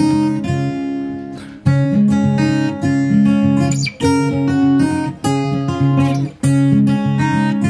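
Background music of strummed acoustic guitar chords, with a fresh chord struck every second or so.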